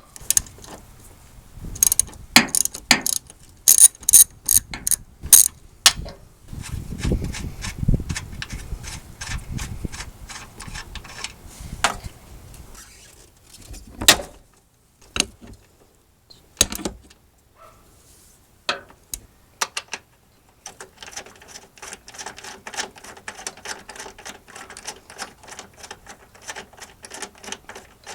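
Hand socket ratchet clicking as the nuts on top of the front strut mount are loosened: sharp single clicks at first, then long runs of rapid clicking, with a fast steady run from about two-thirds of the way through.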